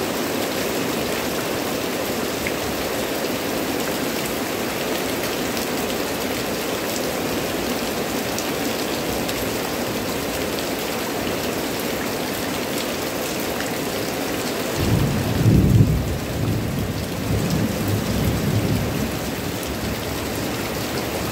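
Heavy tropical rain pouring steadily onto leaves and the ground. About two-thirds of the way through, a low rumble of thunder rolls for a few seconds.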